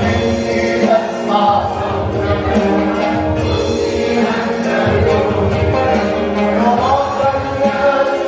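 Christian worship song: a choir sings held notes over instrumental accompaniment.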